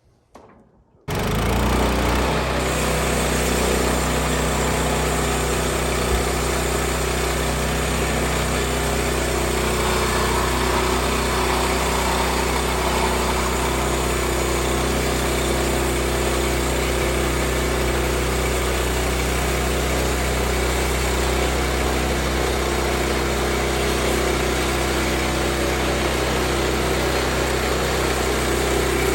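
Woodland Mills HM122 bandsaw mill's small gasoline engine running steadily at cutting speed, coming in suddenly at full level about a second in.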